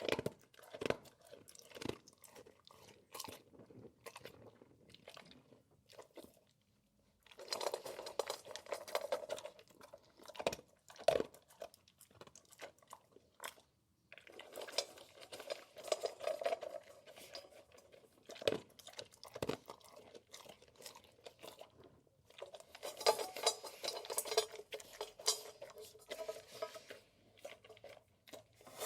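A big dog eating, crunching and chewing its food: three spells of dense, rapid crunching, with scattered single crunches and clicks in between.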